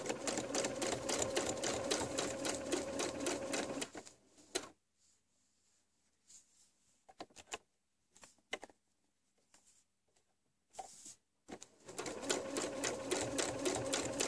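Domestic electric sewing machine stitching quilt fabric: a run of rapid stitching about four seconds long, a pause of several seconds with a few light clicks, then a second run of stitching near the end.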